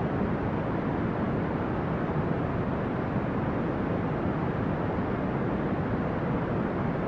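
Steady brown noise: an even, unchanging hiss weighted toward the low end, with no tones or breaks.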